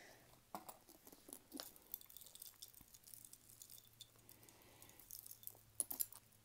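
Faint clicking and clinking of costume jewelry being handled and untangled, with light crinkling of a plastic bag; small irregular clicks throughout, a quick cluster of sharper clinks near the end.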